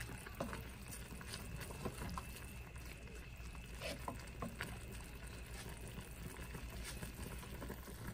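Tomato-sauce chicken broth simmering in a stainless steel saucepan: a steady low rumble with scattered small bubbling pops, and a wooden spatula now and then stirring and tapping in the pot.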